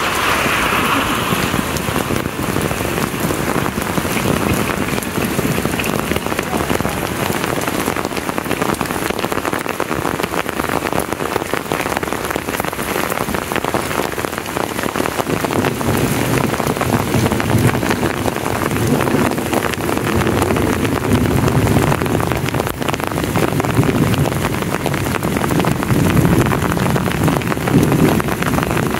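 Heavy rain pouring steadily onto pavement, puddles and shrubs, a dense hiss of drops. It grows louder and deeper from about halfway through.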